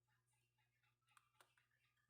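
Near silence: faint room tone with a steady low hum and two faint clicks, close together, a little past halfway.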